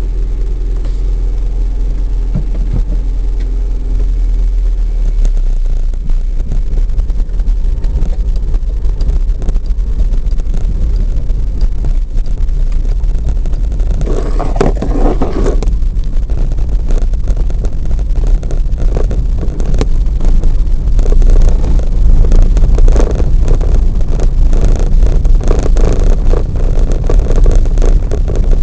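A car driving, heard from inside the cabin: a steady engine hum at first, then a heavy low rumble of tyres on a cobblestone street, with a brief louder swell about halfway and many small rattles and knocks through the second half.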